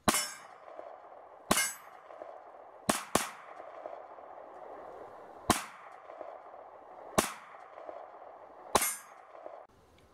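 Glock 43 9mm pistol fired seven times at an unhurried pace, one pair fired in quick succession; each shot is a sharp crack with a short tail.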